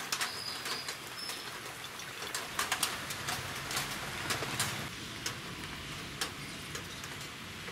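Cooking oil poured from a plastic jug into an empty iron kadai, heard as a faint steady hiss with scattered light clicks and taps, thickest in the first few seconds.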